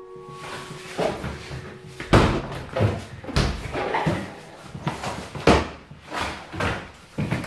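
Kitchen cupboard doors and drawers being opened and shut, with items knocked and clattered about as someone rummages through them. The sharpest bangs come about two seconds in and again past halfway.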